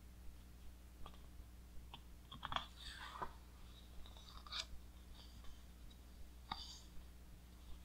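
A large glossy page of a heavy coffee-table book being turned by hand: soft paper crinkles and clicks, a cluster about a third of the way in and a few more near the middle and later.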